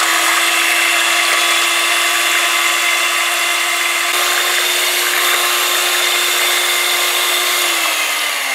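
Electric hand mixer running at a steady speed, its beaters whisking a thin egg and milk flan mixture in a stainless steel bowl; the motor whine is constant until near the end, when its pitch starts to fall as it slows.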